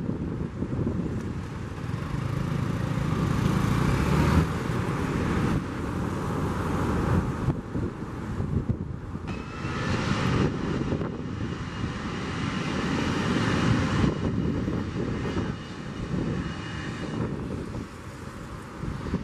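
Airbus A320neo jet engines running as the airliner taxis. The sound is a steady rumble that swells and eases over several seconds, with a faint high whine in the middle of the stretch.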